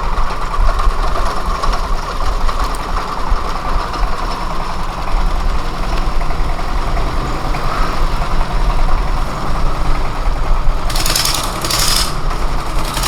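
Heavy engine running steadily with a deep rumble, with two short bursts of hissing noise near the end.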